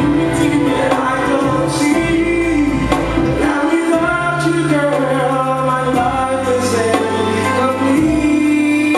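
A man singing into a handheld microphone over amplified backing music, holding long notes.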